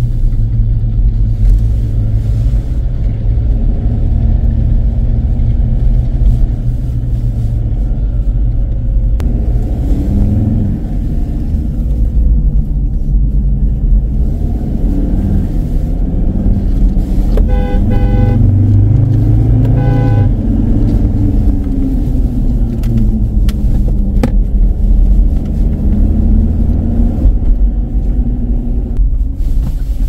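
Steady rumble of a moving car heard from inside the cabin, engine and tyre noise. A vehicle horn honks twice about two-thirds of the way through, the first honk longer than the second.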